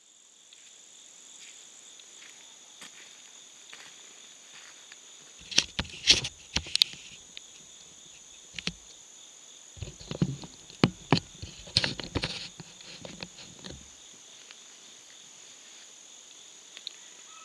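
Steady high-pitched drone of insects in the woods, even and unbroken. A run of sharp knocks and clicks comes about six seconds in and again from about ten to thirteen seconds; these are the loudest sounds.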